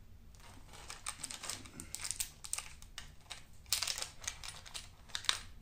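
Small metal wood-burning tips being handled in their plastic packaging: irregular light clicks and plastic crinkling, with no steady rhythm.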